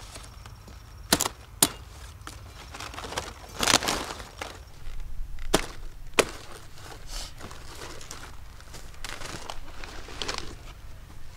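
A few sharp, separate knocks or snaps, with short stretches of rustling or scraping between them.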